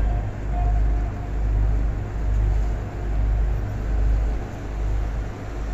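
River cruise boat's engine rumbling low and steady, swelling and easing about once a second.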